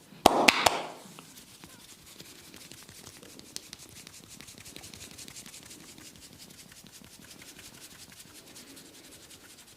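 Three sharp smacks in quick succession in the first second, then fingers rubbing and scratching briskly through hair and scalp in a fast, dense run of strokes.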